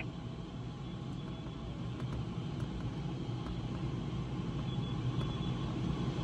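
Steady low rush of airflow over a glider's canopy, heard inside the cockpit in flight.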